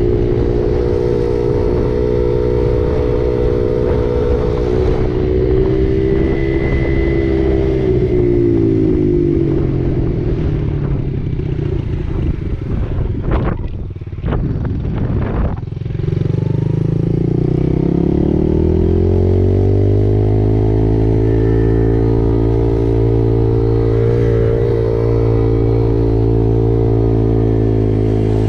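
Dirt bike engine running at a steady speed, then easing off and dropping in pitch about eight seconds in. It runs low and uneven for a few seconds around the middle, then revs back up from about sixteen seconds in and settles into a steady cruise.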